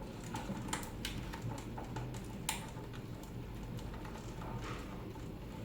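Scattered light clicks and taps from hands handling a cable and its connector among plastic parts, over a steady low hum.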